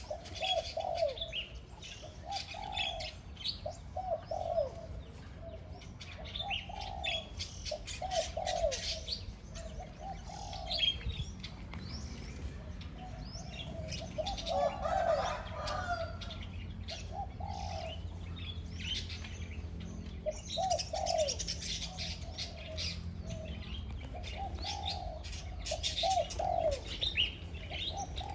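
Spotted dove kept as a decoy bird, cooing over and over in short phrases of low notes, with small birds chirping higher up in the background.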